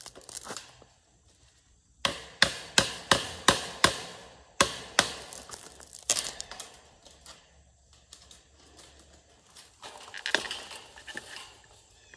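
Hammer striking a screwdriver to knock wire-fence staples out of a wooden fence post: a quick run of about seven sharp blows roughly three a second, then a few more spaced-out strikes and lighter metal clicks and scraping.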